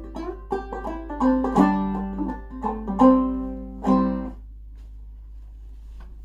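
Five-string banjo played clawhammer style, running through the last phrase of a Cajun fiddle tune and stopping on a final struck chord about four seconds in. A faint steady low hum remains after the chord dies away.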